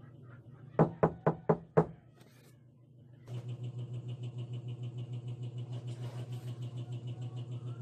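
Knuckles knocking on a door: five quick raps in about a second. About three seconds in, a steady, pulsing low hum starts.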